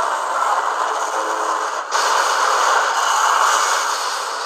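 Movie soundtrack of an oncoming freight train, a dense steady rushing and clattering rail noise, with a brief drop just before two seconds in. It is heard through a TV's speaker and recorded off the screen, so it sounds thin with no bass.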